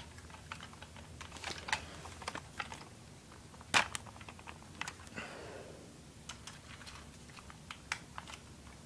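Irregular light clicks and taps of a battery-powered plastic toy robot being handled and switched on, with one sharper click a little before the middle and a brief scrape just after. No motor runs: the robot does not start.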